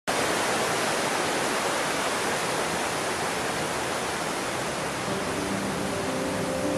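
Mountain stream rushing over rocks in white-water rapids, a steady, even rush of water. Soft held notes of music begin to fade in about five seconds in.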